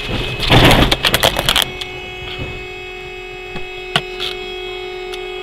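Car crash on a snowy road: about half a second in, a loud burst of crunching and clattering lasting about a second, which cuts off suddenly to a steady hum with a couple of faint clicks.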